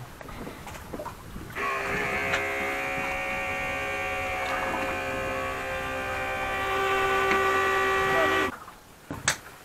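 Electric shallow-water anchor motor running, a steady hum that starts abruptly, grows a little louder near the end and cuts off after about seven seconds.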